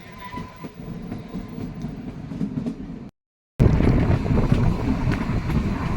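Kalka–Shimla narrow-gauge toy train running: a steady rumble and clatter of the carriage, with wheel clicks over the rail joints. The sound cuts out for about half a second around three seconds in and comes back louder.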